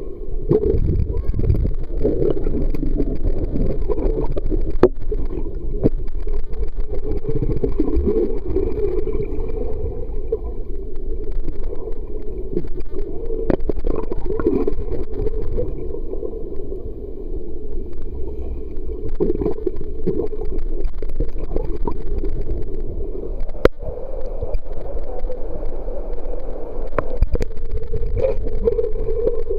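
Muffled underwater sound from a camera submerged in a swimming pool: a steady low rumble and gurgling of water moving around the housing, with a few sharp knocks.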